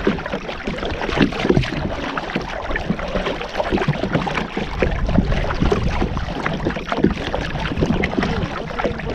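Water splashing and sloshing around a kayak in irregular strokes, with wind rumbling on the microphone.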